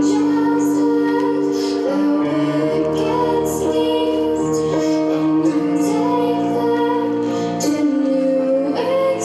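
A female voice singing a slow melody with long held notes over instrumental accompaniment.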